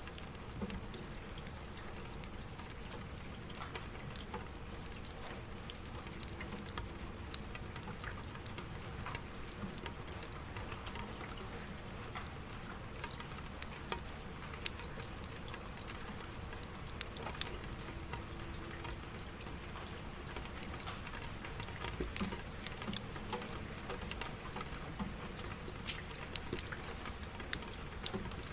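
Steady rain with many scattered drops pattering and tapping on a surface.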